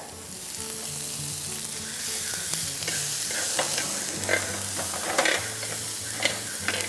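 Chopped onion, broccoli and red bell pepper sizzling in hot oil in a ridged grill pan as they are sautéed. A wooden spatula stirs them, giving a handful of short scrapes and knocks against the pan.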